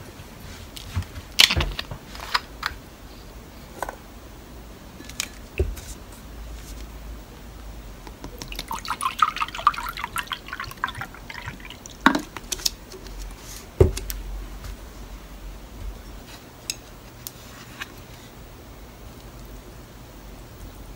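An amber drink poured from a plastic bottle into a glass cup for a couple of seconds, about nine seconds in. Around it come scattered sharp knocks and clicks from the bottle and glass being handled and set down on the table, the loudest about a second and a half, twelve and fourteen seconds in.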